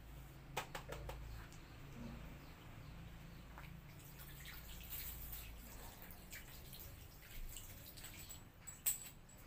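Faint dripping and trickling water around a plastic barrel pump, with a cluster of sharp clicks and taps about a second in and one louder sharp click near the end from hands working the barrel's lid and its blue PVC outlet pipe.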